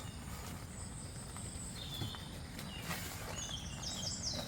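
Birds chirping in short, high, repeated notes, a few about two seconds in and a quicker run near the end, over a steady low rumble of outdoor background noise.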